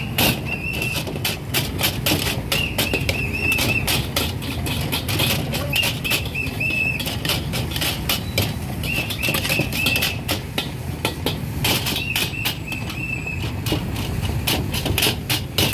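A metal ladle clanking and scraping against a steel wok while stir-frying rice: rapid, irregular clanks over a steady low rumble, with a brief high squeal every few seconds.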